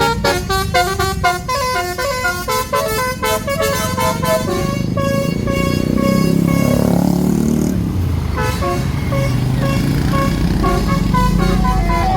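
Tour bus's basuri musical horn playing a fast melody of short stepped notes. About five seconds in, the horn gives way to the bus's engine as it drives past, and the horn melody starts again near the end.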